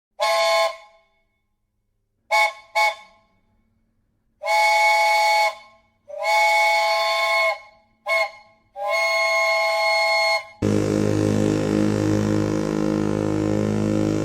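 Cartoon sound effect of a steam locomotive's chime whistle, several notes sounding together, blown in a pattern of toots: one short, two quick short ones, two long, a short one and another long one. About two-thirds of the way in, a louder, lower, steady sound with a deep hum cuts in and holds.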